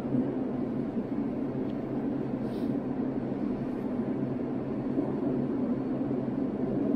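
Steady in-flight cabin noise of a Boeing 787 airliner: an even low rumble of engines and airflow.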